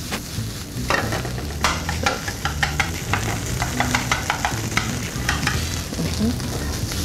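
A spoon or spatula stirring and scraping onions and garlic sizzling in a frying pan, with a run of sharp irregular scrapes and knocks against the pan over a steady hiss of frying.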